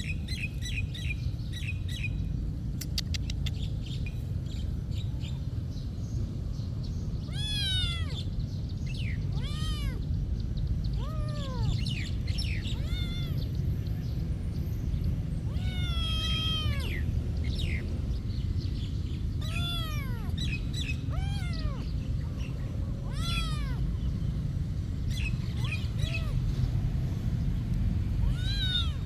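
A cat meowing over and over, about a dozen separate meows, each rising then falling in pitch, over a steady low rumble.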